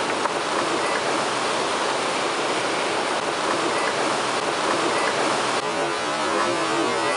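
Steady rush of ocean surf breaking among rocks and boulders along the shore.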